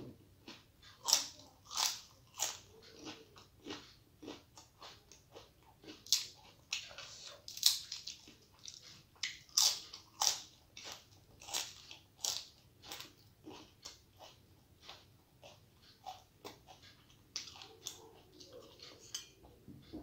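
Fried papad being bitten and chewed: repeated crisp crunches, a loud crack every second or two with quieter crackling between.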